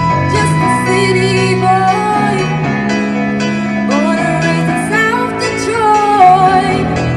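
A woman singing a song over instrumental backing with guitar; her voice comes in about a second in, with vibrato on the held notes.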